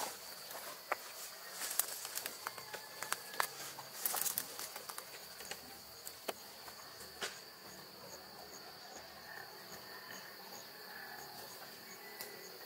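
Insects chirring steadily in the background, one high-pitched note held throughout and another pulsing about twice a second from the middle on. Over it come scattered sharp rustles and taps of hands working and pressing soil around a seedling, mostly in the first half.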